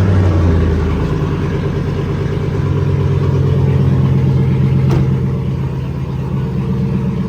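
Cammed 5.3 L V8 of a GMT800 GMC pickup running just after start-up, a fast idle that rises about a second in, holds, then eases down slightly after about five seconds. This is the engine the owner suspects of a lifter tick on the driver's side.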